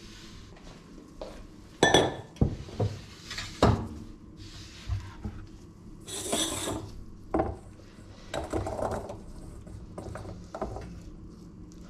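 Kitchenware being handled: two sharp clinks of dishes and a stainless steel bowl being set down, about two seconds and four seconds in. Then a scraping, sliding noise with smaller knocks as diced tomato and pepper are pushed off a wooden cutting board into the bowl.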